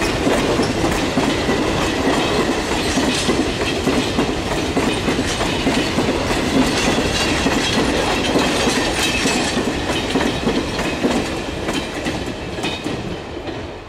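Intermodal container freight train's flat wagons rolling past at speed, a steady rumble with wheels clicking over rail joints. The sound fades near the end as the last wagon goes by.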